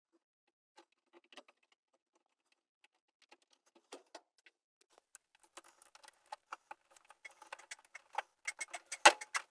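Small clicks and crackles of hands working an electrical wire splice. They are sparse at first and rapid from about halfway, with one sharp click near the end.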